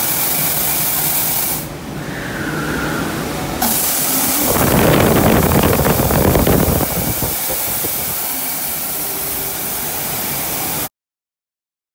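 Steady rushing water and spray, with a louder gush of water for about two seconds near the middle. The sound cuts off abruptly about a second before the end.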